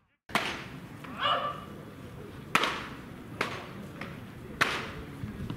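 Pitched baseballs popping into catchers' mitts during bullpen pitching practice: three sharp pops, the second and third about a second apart. A short call comes about a second in.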